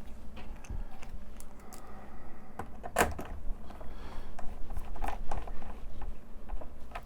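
Scattered light clicks and knocks of small parts being handled and pressed into place, with the sharpest knock about three seconds in, as the odometer unit is fitted into the instrument cluster housing.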